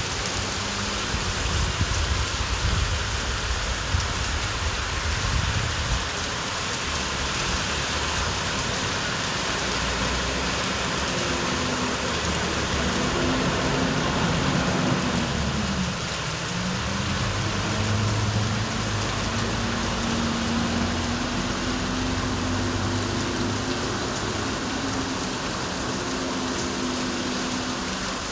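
Steady rain falling on a busy street, with traffic passing. About halfway through, a vehicle engine's hum comes up over the rain; its pitch dips once and rises again.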